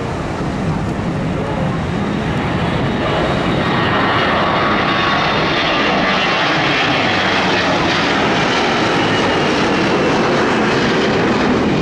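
Twin jet engines of an Airbus A321 airliner at takeoff power as it rotates and climbs out: a loud, steady rushing noise that grows louder about three seconds in, with a faint high whine sliding slowly down in pitch.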